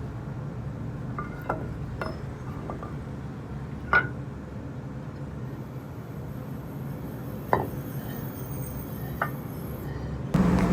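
A few light metallic clinks and taps, spaced one to three seconds apart, over a steady low hum. Near the end a louder steady noise starts abruptly.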